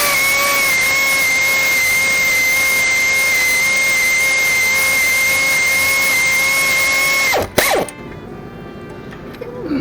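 Power drill running at one steady speed for about seven seconds as a high whine, then cutting off and spinning down.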